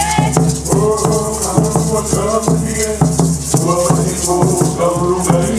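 Hawaiian hula music with a rattle marking a steady beat, about three strokes a second, over a repeating bass line and a melody.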